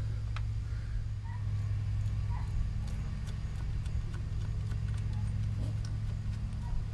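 A steady low hum, with a few faint light metal clicks and taps from a chain sprocket and its spacer being worked by hand onto the engine's output shaft.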